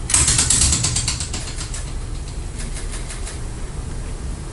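Foley sound of a bird's wings flapping as it flies off: a rapid flurry of fluttering clicks that fades over about a second and a half, then a shorter, softer flurry about two and a half seconds in.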